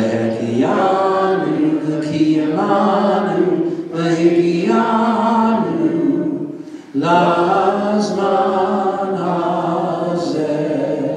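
A man's voice chanting a prayer unaccompanied through a microphone, in long held phrases with short breaths between.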